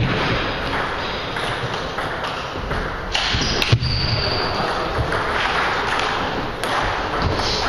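Table tennis rally: the ball pinging off rackets and table, with footsteps thudding on the wooden floor and one sharper smack about halfway through.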